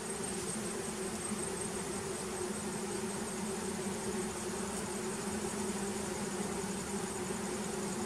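A honey bee colony in an opened hive box humming steadily, a dense, even buzz of many bees.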